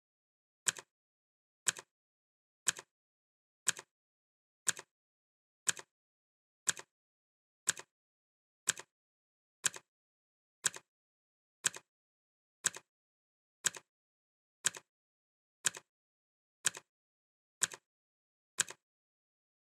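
Clock ticking sound effect: one sharp tick every second, each followed at once by a softer second click, with silence between.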